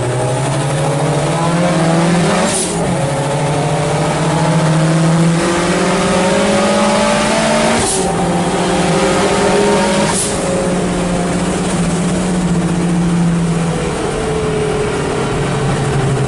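A race car's engine running hard under full acceleration, its pitch climbing slowly and breaking at gear changes about three times.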